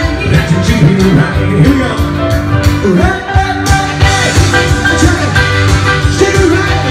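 Live grand piano with a singer performing an upbeat rock-and-roll song over a steady beat, recorded loud on a mobile phone's microphone.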